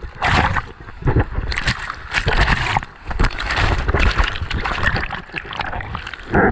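Sea water splashing and sloshing close up in the surf, in irregular rushing surges.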